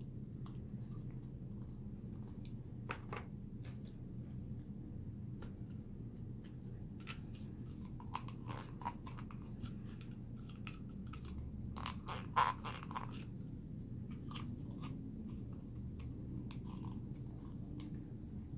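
Paperboard box panels being folded, creased and tucked by hand: scattered crackles and clicks, with the loudest cluster about twelve seconds in, over a steady low hum.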